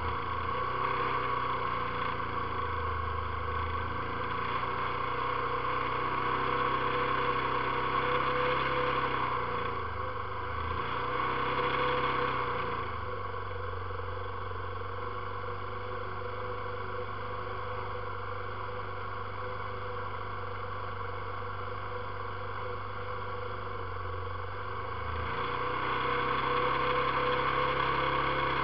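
ATV engine running steadily, its revs rising and easing off a few times.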